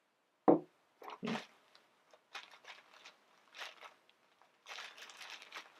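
Paper and packaging rustling and crinkling in short, irregular bursts as an order is unpacked and its packing slip handled, with a single soft bump about half a second in.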